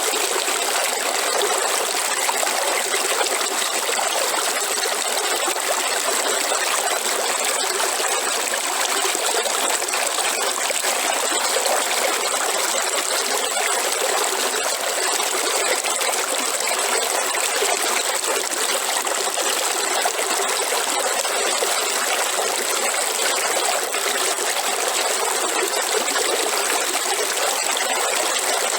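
River water flowing, a steady, unbroken rush and trickle that holds the same level throughout.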